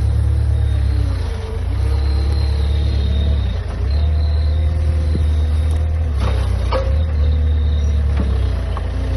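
A motor running steadily with a loud deep hum, its pitch dipping briefly about a second and a half in and again near four seconds.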